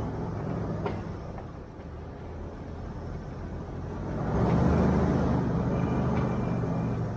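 Off-road vehicle engine running at crawling speed on a rutted dirt trail, pulling harder and growing louder about four seconds in before easing near the end. A single short knock comes about a second in.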